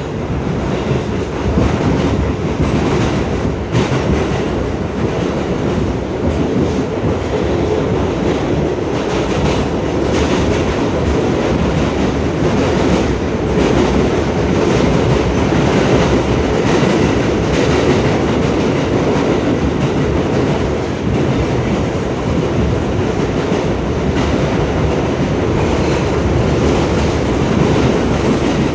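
R62A subway car running, heard from inside the car: a steady, loud rumble of wheels on rails with faint clicks from the track.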